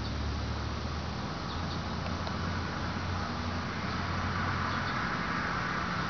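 Steady outdoor background noise: a low mechanical hum under an even hiss, with a few faint, short high chirps.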